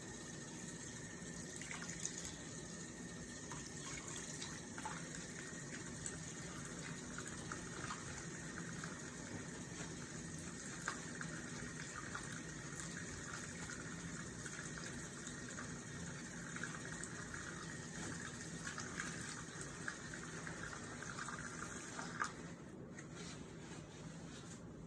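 Sink faucet running steadily while hands are washed under it. Small splashes and clicks come through the flow, and near the end a sharp knock sounds and the water dies down.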